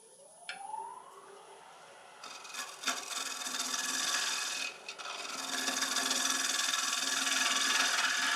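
A wood lathe spins up with a rising whine. From about two seconds in, a bottom-feeder bowl gouge scrapes and cuts the inside bottom of a dry Irish yew bowl, with a brief break near the middle.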